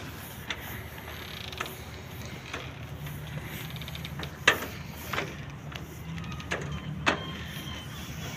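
Moored wooden sailing ships creaking and knocking irregularly as they shift against their mooring lines and fenders, a few sharp creaks spaced a second or so apart, the loudest about halfway through, over a steady low hum.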